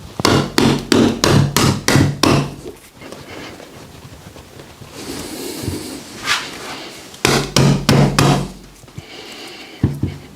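Quick series of sharp blows, about three to four a second, in two runs of several strikes with a pause between, then one more blow near the end: percussive striking on a patient's body during a manual therapy session.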